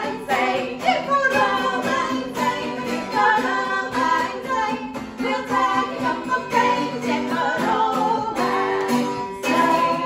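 Acoustic guitar strummed in a lively tune, with a woman singing along.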